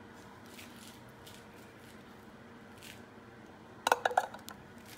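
A few faint handling ticks, then near the end a quick cluster of clinks with a short ringing, as something knocks against a mixing bowl.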